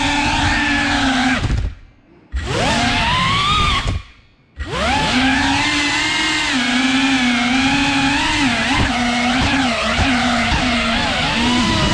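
Small FPV quadcopter's motors and propellers whining, the pitch rising and falling with throttle. Twice the sound drops away almost to nothing, about one and a half and four seconds in, and comes back each time with a rising whine.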